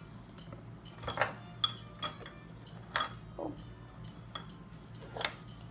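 Coloured pencils and brushes clinking and tapping against a glass jar and a glass tabletop: about six separate light clinks, spread unevenly through the few seconds.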